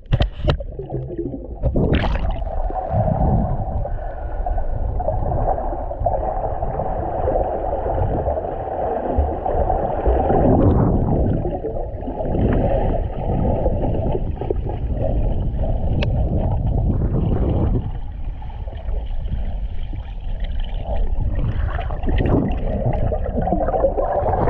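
Muffled underwater water noise picked up by a submerged GoPro: a dense low rumble and gurgling of moving water, with a few faint clicks. The sound changes abruptly a couple of times.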